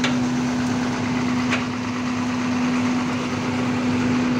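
Machinery running steadily: a constant low drone over an even mechanical noise, with two sharp clicks about a second and a half apart.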